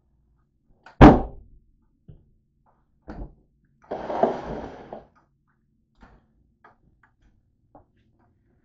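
A sharp, heavy thump about a second in, then a lighter knock, about a second of rustling or scraping, and a few faint clicks: objects being handled and set down.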